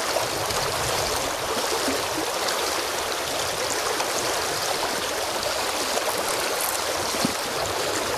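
Fast, shallow river water rushing steadily over a stony riffle.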